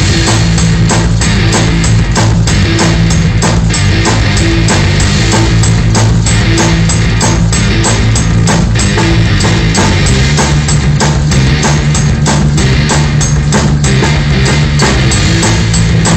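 A robot band playing loud rock music live on a drum kit and electric guitar, with a steady driving drum beat under sustained low guitar notes.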